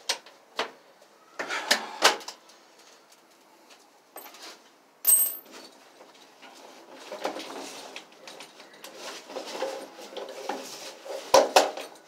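Small hard objects and tools being handled: scattered clicks and clatter, a short metallic ring about five seconds in, a stretch of rustling, and two sharp knocks near the end.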